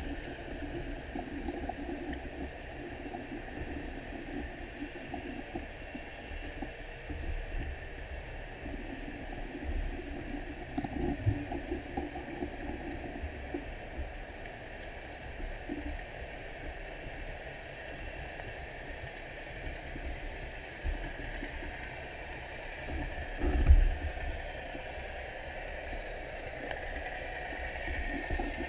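Underwater ambience: a steady low rumble with water gurgling and swishing. There is a single sharp knock about five seconds before the end.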